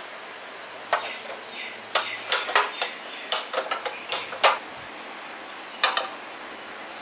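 Irregular sharp clicks as a portable single-burner gas stove is turned on and lit with a spark gas lighter, then a knock near the end as a non-stick kadai is set down on the burner.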